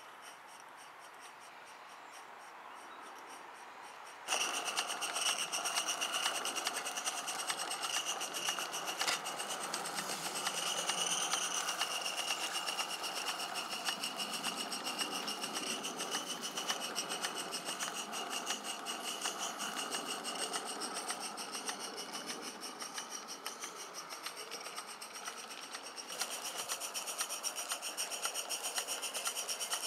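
Accucraft live-steam garden-scale locomotive (Lynton and Barnstaple 'Lew') running on its track: faint at first, then from about four seconds in a louder, fast, even patter of exhaust beats and running-gear noise as it passes close by.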